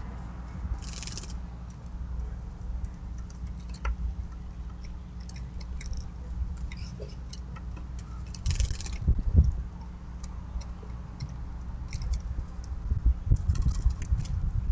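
Mourning doves pecking seed on a wooden feeder platform: scattered light taps and clicks over a steady low rumble, with two brief rushing noises, one about a second in and a louder one around two thirds of the way through.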